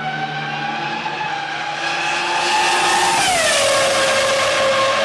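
Racing car engine at high revs: its note climbs slightly, then drops sharply about three seconds in and holds at a lower pitch.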